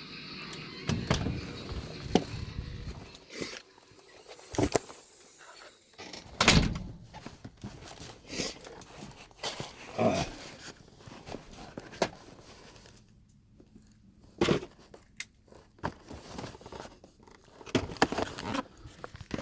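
Scattered knocks, clicks and thuds of items such as DVD cases being handled and set down while rummaging through stored stock. The loudest is a thump about six and a half seconds in.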